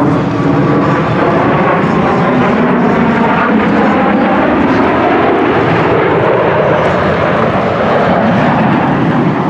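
Airplane flying past at an air show: a loud, steady engine roar whose pitch glides as the aircraft passes.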